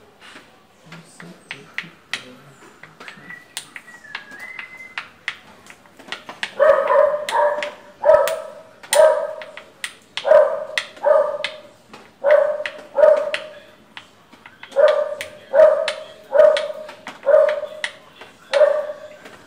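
A dog barking repeatedly, about a dozen loud barks roughly a second apart, starting about six seconds in.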